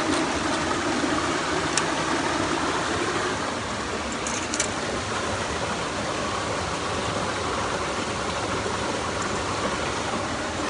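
Mountain stream water rushing steadily, with a few faint clicks about two seconds in and again near four and a half seconds.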